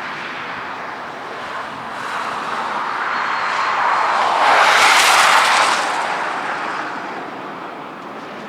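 Jet airliner passing close by, a broad engine roar that swells to its loudest about five seconds in and then slowly fades away.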